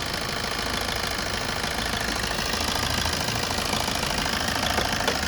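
Maruti Swift Dzire diesel engine idling, with a light, even knocking that the mechanic takes for timing noise, though a worn connecting rod bearing or piston pin can give the same sound.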